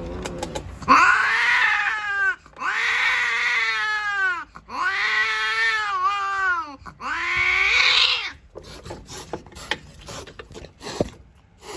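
Female cat yowling during mating: four long, drawn-out cries, each about a second and a half, rising and falling in pitch. The yowling stops about eight seconds in, and a brief scuffle of knocks and thumps follows as the cats break apart.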